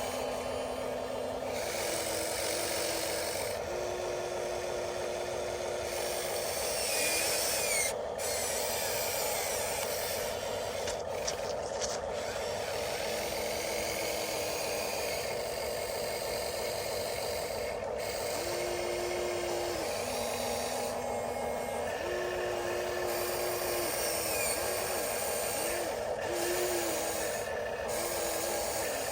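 Electric motors and plastic gearboxes of Huina radio-controlled construction models whining as they work, with a steady gear whine underneath and short runs of motor whine lasting a second or two, several of them in quick succession near the end.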